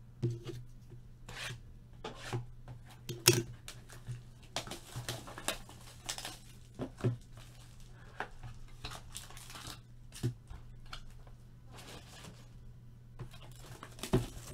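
Sealed boxes of baseball cards being torn open by hand: irregular tearing and crinkling of plastic wrap, with sharp clicks and handling of cardboard.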